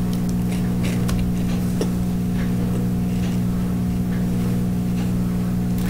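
A steady low electrical-sounding hum with faint crunching clicks of a snack being chewed over it.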